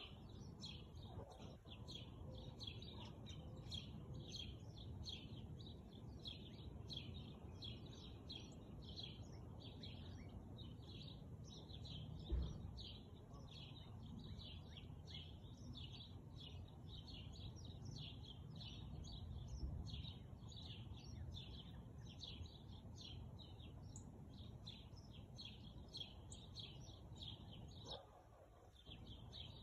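Small birds chirping continuously in quick, short high notes, about three or four a second, over a low steady outdoor rumble. A single thump about twelve seconds in.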